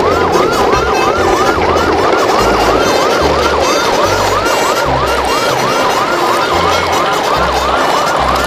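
Electronic yelp siren, its pitch sweeping up and down rapidly about three times a second, over a low bass line.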